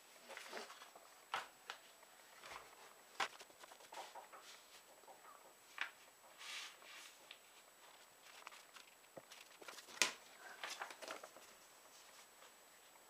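A sheet of paper is folded and creased by hand into a paper airplane, making faint rustles and crinkles with short, sharp crackles at irregular moments. The sharpest crackle comes about ten seconds in.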